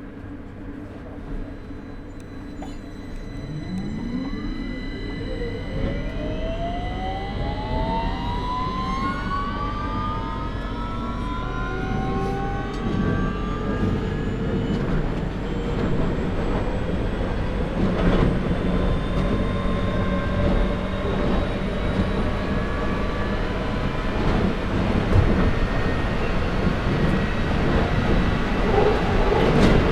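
London Underground 2009 Stock train pulling away and accelerating, heard from onboard. A few seconds in, the traction motors' whine starts to rise, several tones climbing in pitch together, and the train's running rumble grows louder as it picks up speed.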